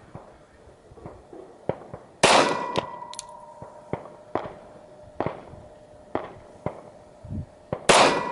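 Two loud pistol shots from a Glock 40 in 10mm, about five and a half seconds apart, each leaving a ringing tone that hangs for several seconds. Fainter, sharper cracks of other gunfire come in between.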